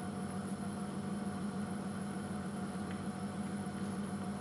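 Steady hiss and low hum of a gas stove burner under a pan of fettuccine in cream sauce that is just starting to boil, with a faint tick or two.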